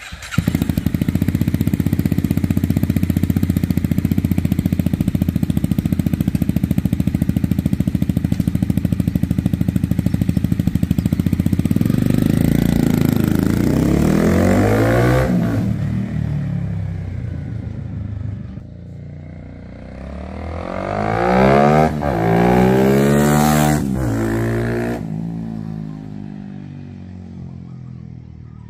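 A Honda CBR250R single-cylinder engine in a small pit bike runs steadily and loud at close range. About twelve seconds in the bike pulls away, revving up and easing off through the gears, with its loudest run of revs later on, then fades into the distance.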